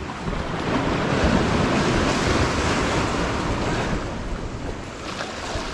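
Sea waves surging and breaking against the jetty rocks: a rush of water that builds about half a second in and eases after about four seconds, with some wind on the microphone.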